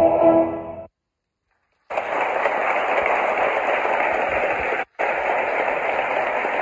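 A male voice choir's final held chord fading out. About a second later, audience applause starts up and runs on steadily, with one brief break about three seconds after it starts.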